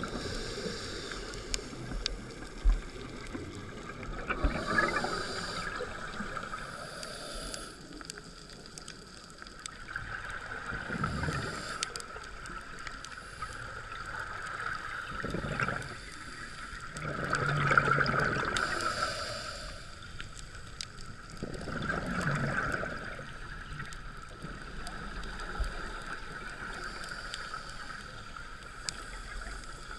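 Underwater sound picked up by a camera in a dive housing: a steady drone with a scuba diver's exhaled bubbles rushing and gurgling past every few seconds, about five times.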